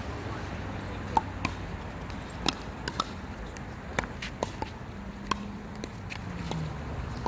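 Pickleball paddles striking the plastic ball in a rally: a series of sharp knocks at uneven intervals, the loudest about a second in, over a steady low background noise.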